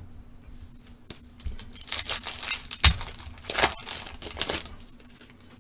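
A foil trading-card pack being torn open and its wrapper crinkled, in crackly bursts starting about two seconds in and dying away near the end, with a single thump near the middle.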